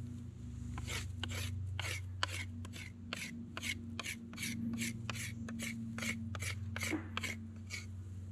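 A fixed-blade knife whittling a wooden stick, shaving it in short scraping strokes at about two a second. A steady low hum runs underneath.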